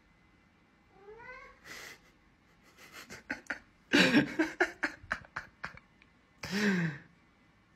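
Orange long-haired cat vocalising. There is a short rising meow about a second in, then a spell of breathy, noisy sounds mixed with clicks around the middle, and a lower, falling call near the end.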